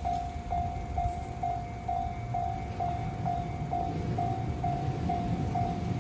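Japanese railroad crossing warning bell ringing, an electronic ding repeating about twice a second, the signal that a train is approaching and the gates are down. A low train rumble grows louder toward the end.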